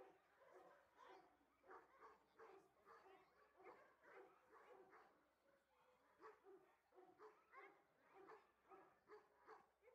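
A dog whining and yipping in a quick series of short, faint calls, about two or three a second.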